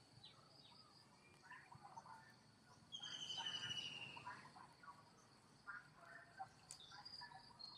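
Faint outdoor ambience: a bird gives one long whistled call that slides slowly downward, about three seconds in, over a steady high insect whine and scattered faint chirps.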